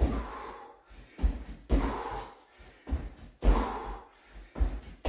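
A man's heavy exertion breathing during fast squat touchdowns: a hard breath with a low thud roughly once a second, in a steady rhythm with each rep.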